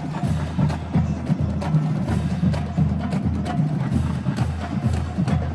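HBCU marching band drumline playing a cadence: bass drums pounding a steady beat under snare and sharp rim clicks, with no horns playing.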